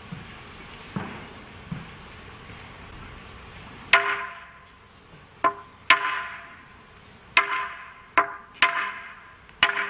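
Wooden semantron, a long hand-held plank, beaten with a mallet as a call to prayer. The strikes begin about four seconds in and come in an uneven rhythm of single and quick double knocks, each ringing briefly.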